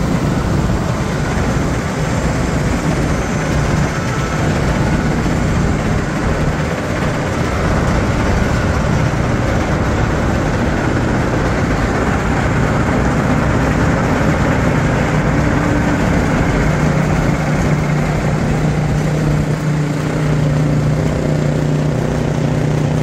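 A McCloskey S190 tracked screener's Caterpillar diesel engine running steadily. It is a constant mechanical noise with a low drone, and the drone grows a little stronger in the last few seconds.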